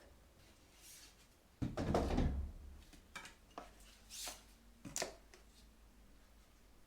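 A heavy thud followed by a rough rush lasting about a second, then a handful of short sharp knocks and scrapes over the next few seconds.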